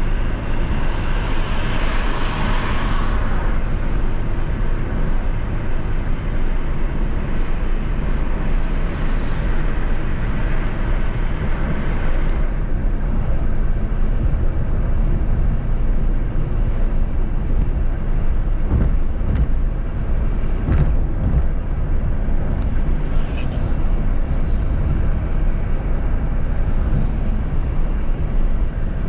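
Steady low rumble of a car travelling at highway speed, with road and wind noise. A vehicle passes with a rising hiss about two seconds in, and another about ten to twelve seconds in.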